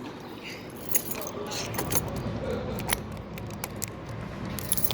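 A bunch of keys jangling, with scattered sharp metallic clicks, as a key is worked in a vending machine's door lock, one that tends to stick.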